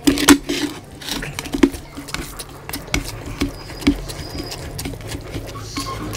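Close-miked eating sounds: wet smacks and clicks of chewing, with fingers squishing and mixing rice and oily mutton curry on a plate, in an irregular patter.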